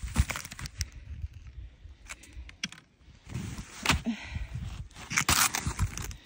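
Snowshoe footsteps crunching and scraping in snow on an uphill slope, in an uneven rhythm of steps.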